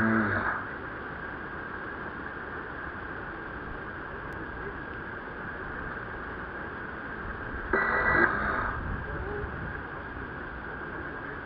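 A steady, even hiss of outdoor noise, with a short louder burst carrying a few tones about eight seconds in. Just before it, the last of a music clip cuts off half a second in.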